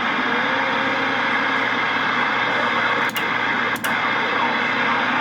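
CB radio receiver static: a steady hiss of band noise on an open channel between transmissions, with two brief dropouts around three and four seconds in.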